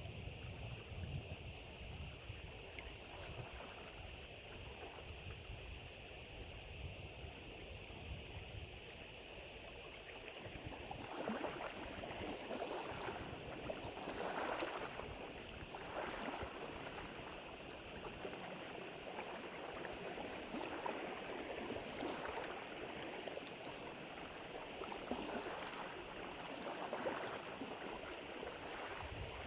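Low wind noise on the microphone for about the first ten seconds, then small wind-driven waves lapping at the lake edge, swelling and falling in repeated surges.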